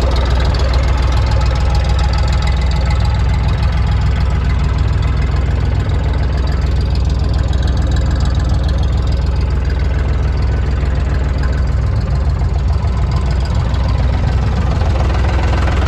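Hanomag 300A compact tractor's diesel engine running steadily at low speed, with an even, rapid pulsing.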